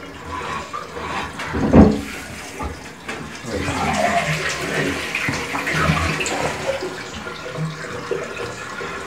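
Toilet tank refilling with running water after a flush. There is a sharp thump about two seconds in.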